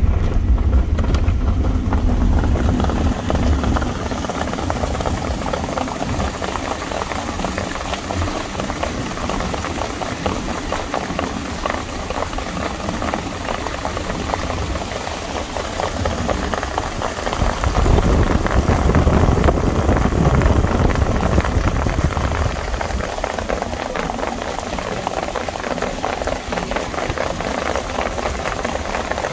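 A vehicle's engine running and road and wind noise, heard from inside the starter car as it drives along the racetrack. The low rumble is stronger in the first few seconds and swells again about two-thirds of the way through.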